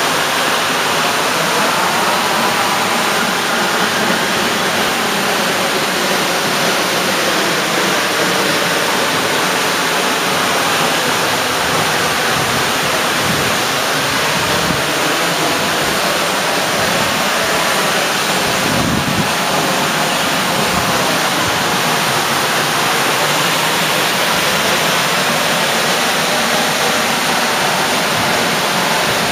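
Tall plunge waterfall falling into its pool: a loud, steady rush of water. A few low thumps on the microphone come around the middle.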